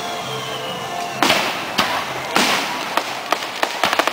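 Aerial fireworks: two shell bursts a little over a second apart, each a sharp bang with a trailing echo. A rapid string of crackling pops follows near the end.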